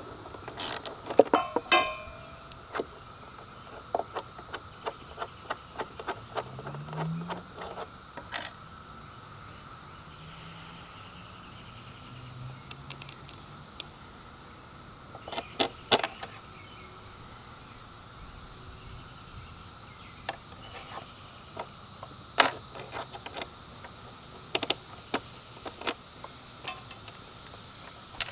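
Scattered metallic clinks and clicks of a wrench, bolts and nuts being handled at a battery terminal as a bolt is removed and refitted. The clicks come in clusters in the first two seconds, from about four to eight seconds in, around the middle, and again near the end.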